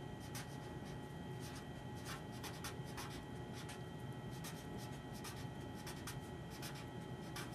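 Felt-tip marker writing on paper, a quick irregular run of short scratchy strokes as letters are drawn.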